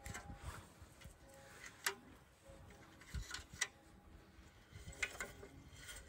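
Lumps of charcoal knocking and clinking against a metal fire pot as they are placed in by hand: a few faint, sharp clicks at irregular intervals.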